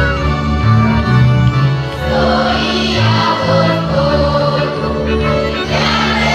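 Folk string band of violins, double bass and accordion playing a Christmas song; about two seconds in, a group of voices comes in singing along.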